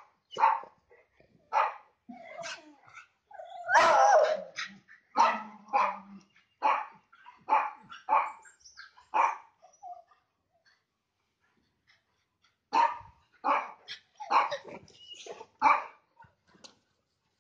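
A dog barking in quick repeated barks, with one longer, louder bark about four seconds in. The barking stops for a few seconds past the middle, then starts again.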